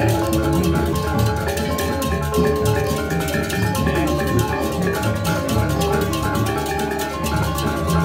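Balinese gamelan playing: mallet-struck keyed instruments ringing in quick repeated strokes over drums.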